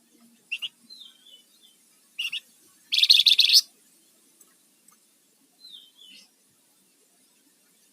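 Flamboyan (wergan jawa) songbird calling: short chirps and slurred whistles that drop in pitch, with a loud harsh chattering burst about three seconds in.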